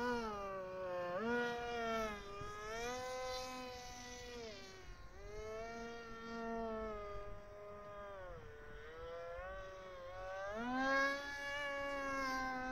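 Radio-controlled F-22 model jet's motor whining, its pitch rising and falling several times as the throttle changes, then holding steady at a higher pitch near the end.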